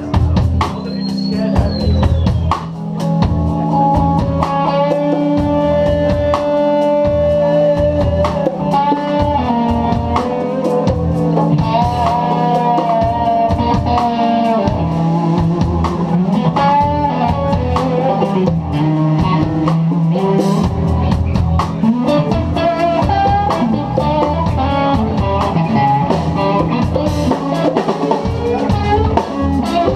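Instrumental funk-jazz fusion band playing live: an electric guitar carries the lead with held, bending notes over electric bass, drum kit and percussion.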